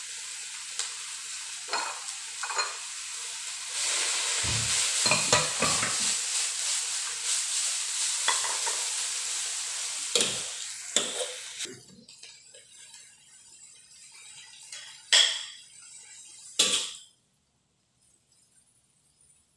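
Chopped greens sizzling as they are stir-fried in a wok, with the spatula scraping and knocking against the pan. The sizzle dies down about two-thirds of the way through, followed by two sharp knocks and then near silence.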